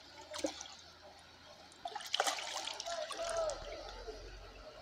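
A hooked carp thrashing at the surface in shallow water, splashing twice: a short splash just after the start and a louder one about two seconds in.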